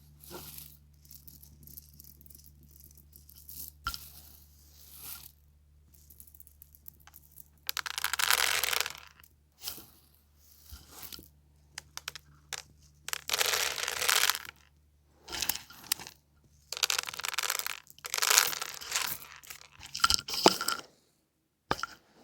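Crinkling and crunching in irregular bursts, typical of foil confetti being handled and scattered, with the vacuum switched off and a faint steady hum underneath.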